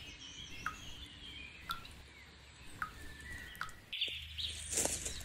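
Birch sap dripping from a wooden spile into a stainless steel cup: single drops land about once a second, each a short, bright drip into the liquid, with birds singing behind. A louder hiss comes in near the end.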